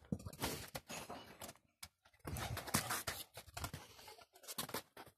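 Irregular scuffing and scraping noises with scattered clicks, from a small dog scrambling after a ball on paving slabs.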